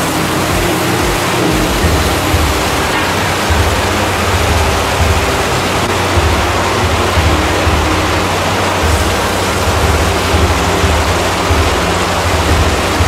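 Chili paste sizzling in hot oil in a wok while it is stir-fried with a metal spatula: a steady, loud sizzle.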